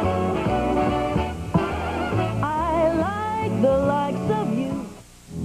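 Music from a TV commercial: a band with guitar under a wavering vibrato melody line. It cuts out briefly near the end.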